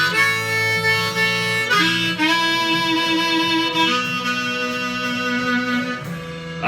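Instrumental break in a blues song: a harmonica plays long held notes, changing about every two seconds, over strummed guitar.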